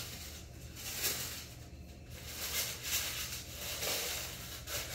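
Tissue paper rustling and crinkling in irregular bursts as a shoe is handled in it.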